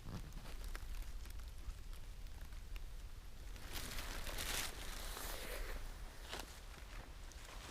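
Footsteps through fallen leaves on a forest floor: scattered crunches and rustles, with a longer, louder rustle about four seconds in.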